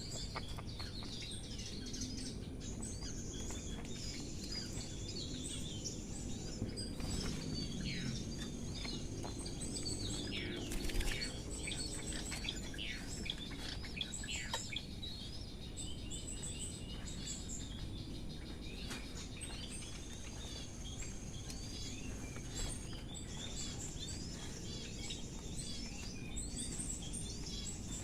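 Birds chirping over and over in short, quick falling notes, with a steady high buzz in several stretches and a low background rumble. One brief knock stands out about eleven seconds in.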